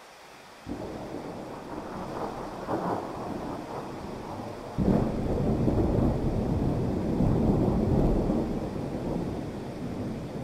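Thunder over steady heavy rain: a low rumble starts under a second in, and a louder clap nearly five seconds in rolls on for several seconds.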